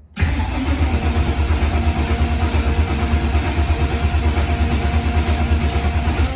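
LS V8 engine turning over on a first start attempt on E85 after a new Holley Sniper dual-quad fuel-injection install, with a fast, even pulsing. It starts abruptly, runs about six seconds, then drops away and stops. The engine is hard to start, which the owner puts down to E85 needing a lot more fuel before it fires.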